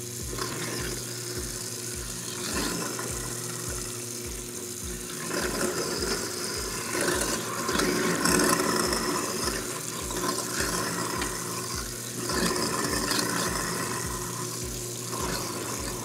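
InSinkErator Badger 5 garbage disposal running with tap water pouring into the sink, grinding pasta and vegetable scraps as they are pushed down the drain. A steady motor hum sits under the water, and the grinding noise swells and eases several times as batches of scraps go in.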